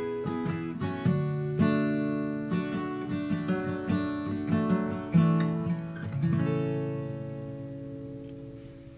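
Acoustic guitar playing the closing bars of a song, picked and strummed notes ending a little over six seconds in on a final chord that rings out and slowly fades.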